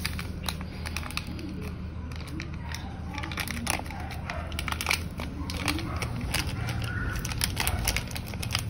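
Crinkling and rapid small clicks of a plastic sachet being handled and torn open, busiest in the second half.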